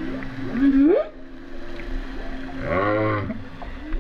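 Humpback whale calls recorded underwater. Just before a second in there is a rising whoop over a steady low hum. Around three seconds in comes a longer call with many overtones that arches up and falls back, and a short rising call follows near the end.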